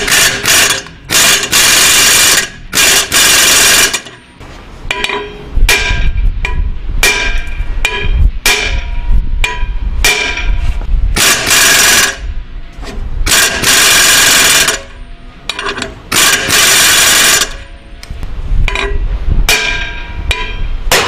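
Impact wrench hammering in repeated bursts of about a second on the centre stem of a three-arm hub puller, loading a rust-seized brake drum and hub to free it from a tapered axle shaft. Shorter metallic knocks come between the bursts.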